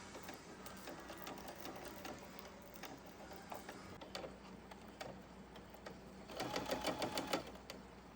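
Sewing machine stitching in a short, fast run about six seconds in, after a few seconds of scattered light clicks and taps.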